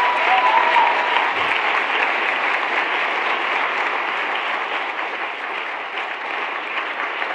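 A large seated audience applauding: dense, steady clapping that eases off slightly toward the end.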